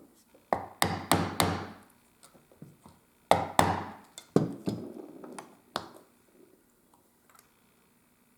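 Sharp knocks of a mallet striking a leatherworking tool. There is a quick run of four about a third of a second apart, then four more spread over the next few seconds.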